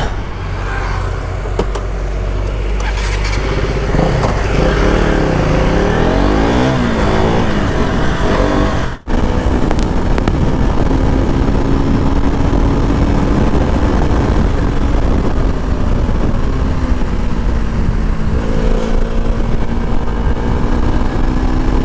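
KTM RC 200's single-cylinder engine under way on the road, its pitch rising and falling through gear changes over the first several seconds, then holding fairly steady while cruising, over a low wind rumble. The sound cuts out briefly about nine seconds in.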